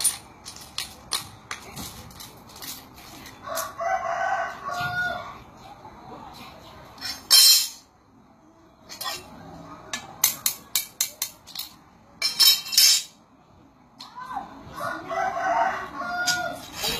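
A rooster crows twice, about ten seconds apart. Throughout, jade offcuts click and clink as they are picked up and set down on the table, with a couple of louder clatters of stones dropped onto the pile.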